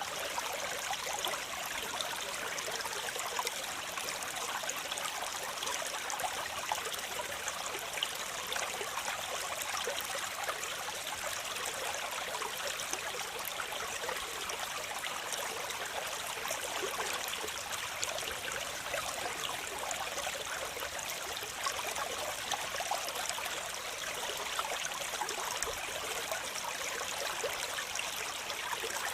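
Waterfall: a steady rush of falling, splashing water, mostly hiss with little deep rumble, unchanging throughout.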